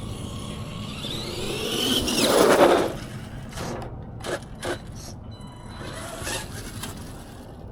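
1/10 RC monster truck's brushed electric motor and drivetrain whining up in pitch under throttle, with a louder rush about two seconds in. A few short sharp clicks follow.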